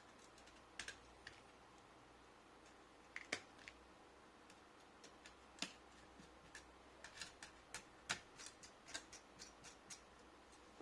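Irregular small clicks and taps of hand tools and parts on a laptop's chassis during reassembly, a few scattered at first, then coming thicker, about two or three a second, in the second half.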